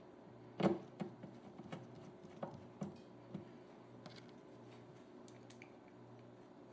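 Turntable parts being handled during reassembly: a louder knock about half a second in, then a run of lighter taps and clicks over the next few seconds, thinning to a few faint ticks.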